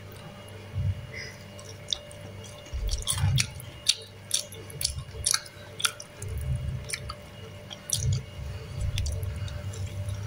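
Crisp fried crust of tofu fritters (perkedel tahu) crackling in scattered sharp clicks as they are handled, with irregular dull low thumps.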